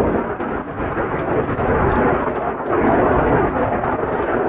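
Jet noise from a Saab Gripen C fighter's single Volvo RM12 turbofan engine in flight: a steady, deep rushing noise with no clear tone.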